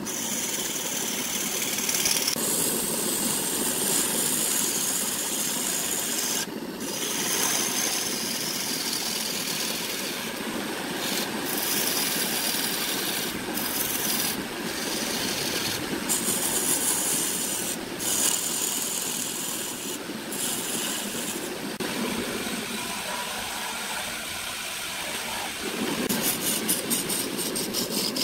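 A wood lathe with a tool working against the spinning wood makes a continuous scraping hiss, broken by several short pauses. Near the end it turns into a rapid, even chatter.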